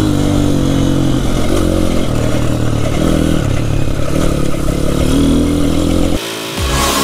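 Dirt bike engine running under way on a trail, its pitch rising and falling as the throttle is opened and closed. About six seconds in, the engine's low rumble drops out briefly.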